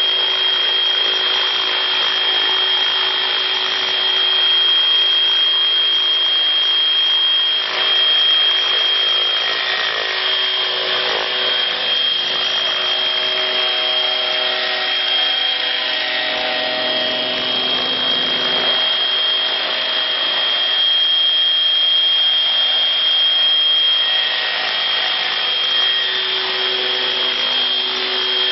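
Kasama Srimok 90 radio-controlled helicopter hovering, its engine and rotors making a steady high-pitched whine, flown with an imbalanced tail rotor.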